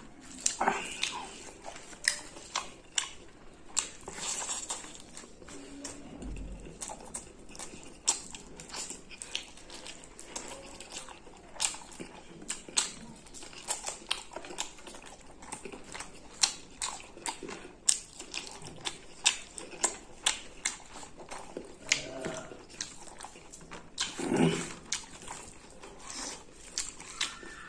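Close-miked mouth sounds of eating rice and chicken curry by hand: chewing with many short, wet lip smacks and mouth clicks, a few of them louder.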